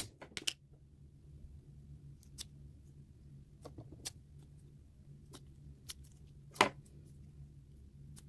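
Soft butter slime (light air-dry clay) squeezed and kneaded in a small plastic tub, giving scattered faint clicks and small pops, the loudest about six and a half seconds in, over a low steady hum.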